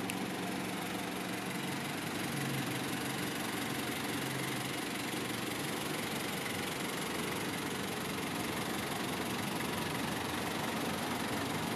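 Nissan TD27ETi 2.7-litre turbo diesel with gear-driven timing, idling steadily.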